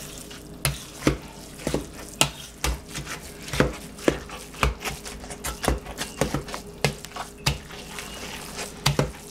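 Metal fork mashing and stirring wet cornbread dressing in a stainless steel mixing bowl, the fork clicking against the bowl about twice a second over a soft squishing scrape.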